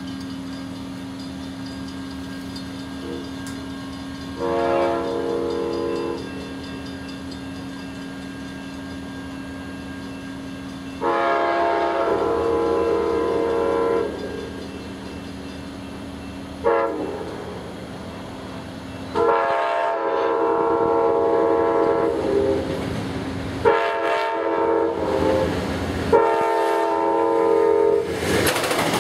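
An Amtrak train's air horn blowing the long-long-short-long grade-crossing signal: two long blasts, a short one, then a last long blast drawn out with breaks. The horn is a chord of several notes. The train is led by two GE Genesis P42DC diesel locomotives, and their engine and wheel noise grow louder near the end as they pass close by.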